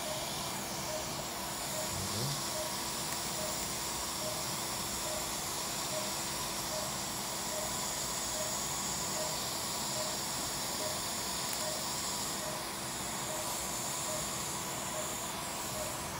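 Steady hiss of an operating-room smoke evacuator drawing air through its tubing. Over it, a short electronic beep from surgical equipment repeats evenly, about two and a half times a second.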